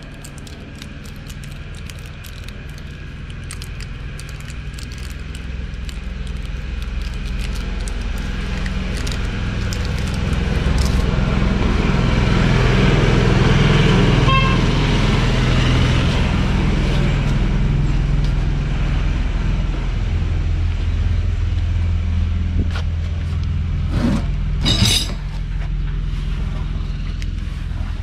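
A motor vehicle's engine running close by, growing louder over the first dozen seconds and then holding steady. About three-quarters of the way through there is a brief, loud sharp burst, with faint clicks heard earlier on.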